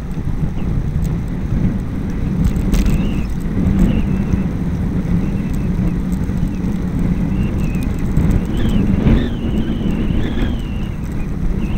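Wind rumbling on a bike-mounted camera's microphone, mixed with road noise from riding on wet tarmac. A thin, wavering high squeal comes and goes.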